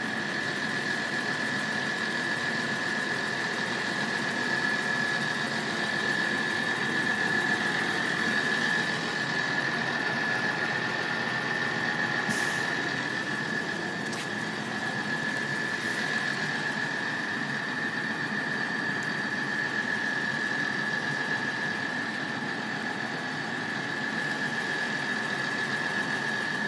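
Level crossing alarm sounders sounding a steady high tone while the barriers are down, warning of an approaching train.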